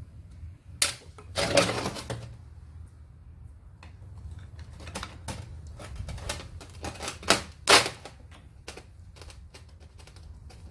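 Irregular metal clicks and knocks from tools and parts on a submersible pump's casing as its cover bolts are worked loose, loudest about a second and a half in and again near the end.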